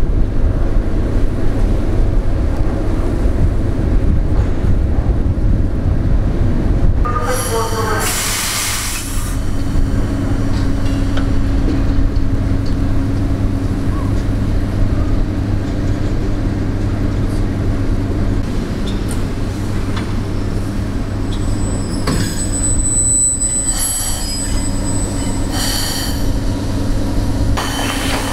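EP3D AC electric multiple unit standing at the platform, its onboard electrical equipment giving a steady low hum with a few fixed tones. A few short hisses break in, about a third of the way in and twice near the end.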